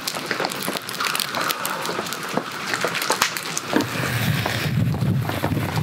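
Scallops in their shells sizzling in butter and soy sauce on a charcoal shichirin grill, with dense crackling pops. A low rumble comes in about four seconds in.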